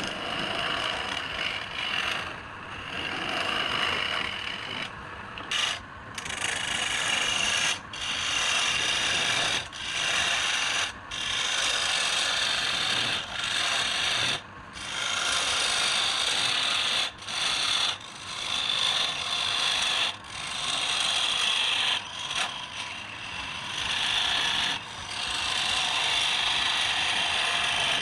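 Wood being worked on a lathe: a harsh, hissing scrape in repeated passes of one to three seconds, each broken by a short pause.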